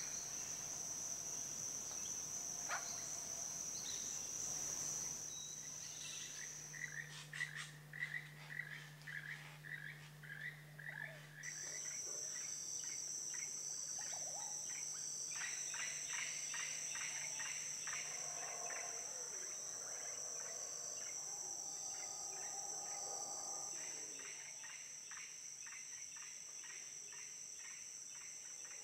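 Tropical rainforest chorus of insects and frogs. A steady high-pitched insect trill runs underneath and shifts to a fuller, two-toned trill about 11 seconds in. Over it come a quick series of chirping calls, then rattling, clicking calls.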